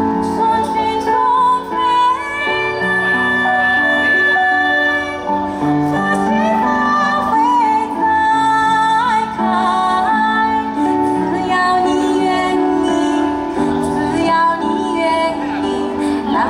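Music: a woman singing a slow song with long held notes over instrumental accompaniment.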